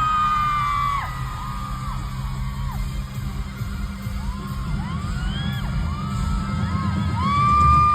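Concert crowd of fans screaming and cheering, many high voices rising and falling over one another, with the band's amplified music low underneath. The screams swell again near the end.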